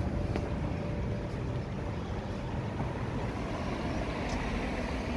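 Steady low rumble of outdoor city street noise.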